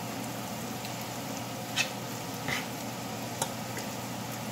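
Thick tomato-chili sambal gravy with mackerel simmering in a stainless steel pan, a steady bubbling sizzle, with three short clicks in the middle.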